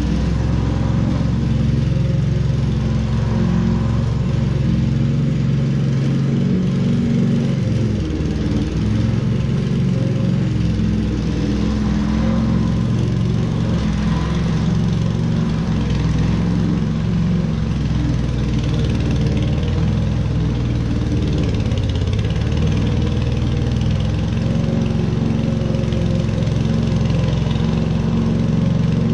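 Petrol walk-behind lawn mower engine running steadily, its pitch shifting slightly now and then.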